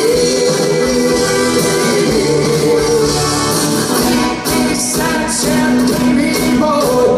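Live pop-rock band playing a song: guitars, keyboard and drums, with a sung vocal and held notes over a steady beat.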